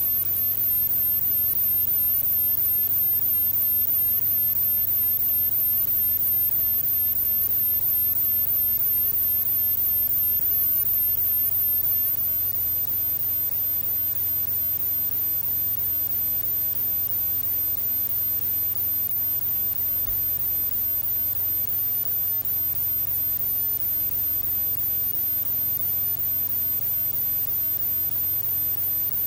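Steady static hiss with a low hum and a thin high whine: the noise of a blank stretch at the end of an old video recording's soundtrack. It drops slightly about twelve seconds in and then holds steady.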